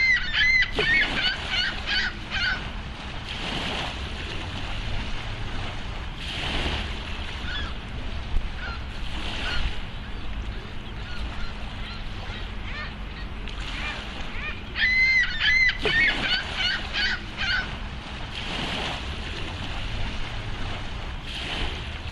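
Swans calling in two bouts of short, repeated notes, one at the start and another about fifteen seconds in, over a steady low rumble.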